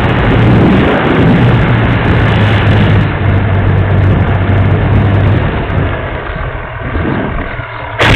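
Airflow rushing over an onboard camera on a Dynam Super Cub RC plane, with a steady low hum from its electric motor and propeller that drops away about five seconds in. A few sharp, loud knocks come right at the end.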